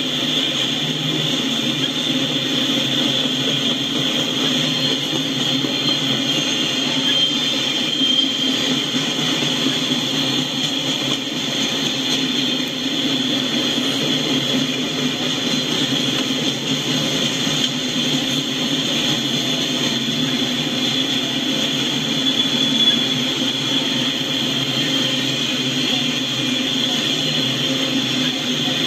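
Freight train's autorack cars rolling steadily past: continuous noise of steel wheels on the rails, with no change in level.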